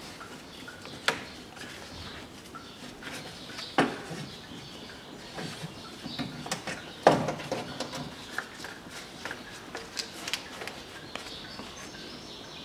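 Scattered clicks and knocks of gloved hands working in an engine bay, a rubber hose and its plastic fittings being worked loose and pulled off. The sharpest knocks come about one, four and seven seconds in, with smaller taps between.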